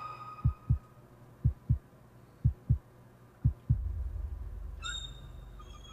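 Heartbeat sound effect in a horror film trailer: four low double beats, lub-dub, about a second apart. After them a low rumble swells and slowly fades, with faint high chirps near the end.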